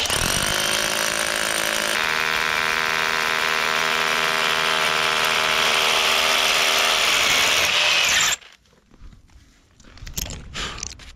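Rotary hammer drill boring a hole into rock, running steadily at one speed for about eight seconds and then stopping suddenly; a few faint knocks follow.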